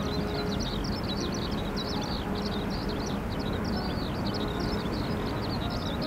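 Many small birds chirping at once, a dense run of short, high, overlapping calls, over a steady low rumbling noise.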